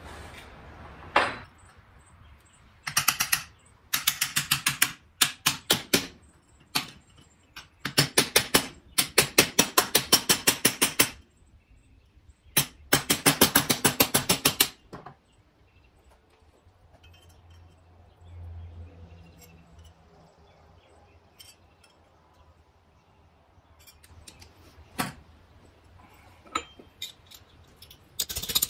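Hammer tapping cold sheet steel: a cut steel flower piece hammered against a wooden stump in several quick bursts of rapid light blows, with pauses between them and only a few scattered clinks later on.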